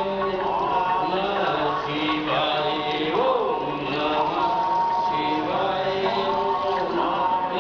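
Hindu devotional chanting sung to a melody, the voice holding long, gliding notes.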